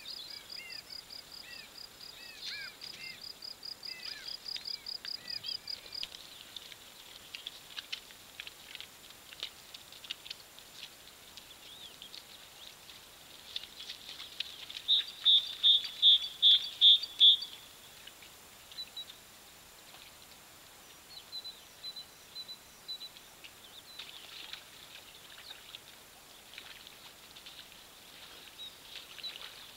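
Wild outdoor ambience of birds and insects: a fast high trill and bird chirps at first, then a short run of about eight loud, high-pitched calls halfway through, then scattered faint chirps.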